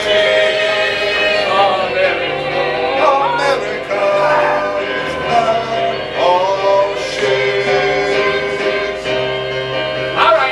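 Gospel choir music: voices singing held chords over a bass line that changes note every second or two.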